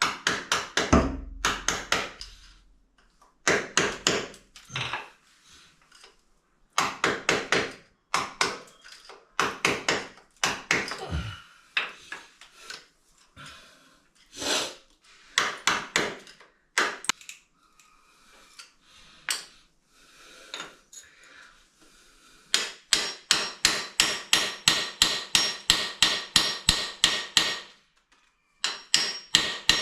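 Hammer blows on a screwdriver used as a chisel, chipping grout and cement from around the base of a ceramic toilet pan. The blows come in short groups, then near the end in a fast steady run of about four a second with a metallic ring.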